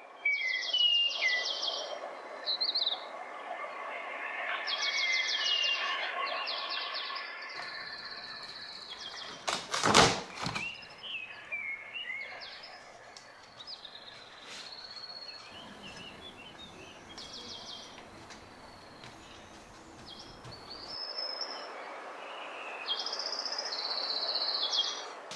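Birds singing and calling: repeated short buzzy trills and chirps. One sharp knock about ten seconds in is the loudest sound.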